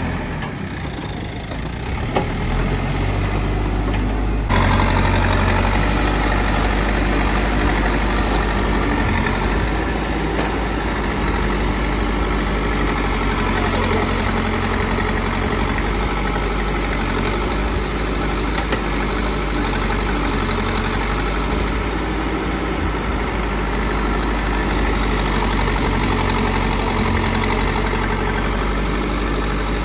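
Backhoe loader's diesel engine running steadily, with an abrupt change in its note about four and a half seconds in.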